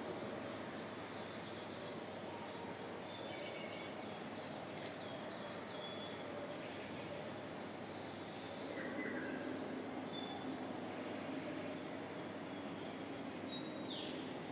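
Recorded nature soundscape playing in an immersive exhibit hall: scattered short bird chirps and a fast, even insect-like ticking over a steady background hum, with a falling bird call near the end.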